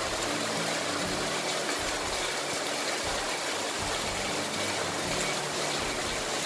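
Heavy rain pouring onto a paved street, a dense, even hiss that holds steady throughout.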